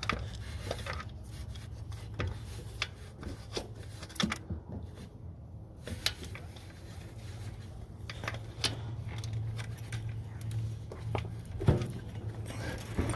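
Scattered metallic clicks and clinks of hand tools working a starter bolt under a car, irregularly spaced, over a steady low hum.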